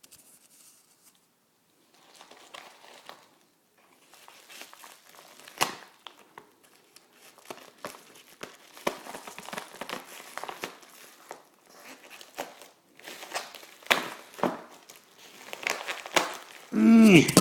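Packaging crinkling and rustling as a shipping box is opened by hand, with some tearing and a few sharp knocks along the way. A short vocal sound comes right at the end.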